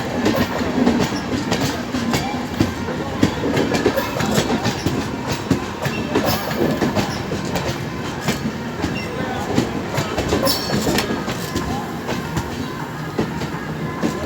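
Indian Railways express train coaches rolling past, with a steady clickety-clack of wheels over rail joints and points.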